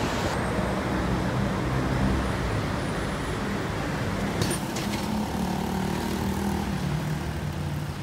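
Road traffic on a city street: cars passing with engines running and tyre noise, a few sharp clicks about halfway through.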